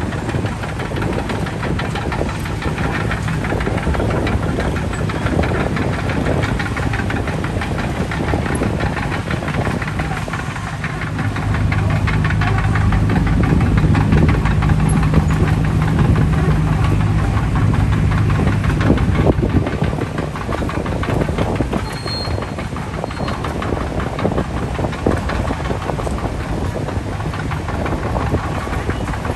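Heavy earthmoving machines (bulldozers and an excavator) running their diesel engines, with a steady metallic clatter. The engine tone grows louder from about 11 s to 20 s, then eases back.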